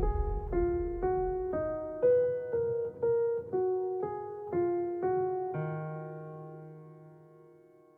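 Background music: a keyboard melody of single notes, about two a second, with drums fading out at the start. A little over five seconds in it lands on a held chord that fades away.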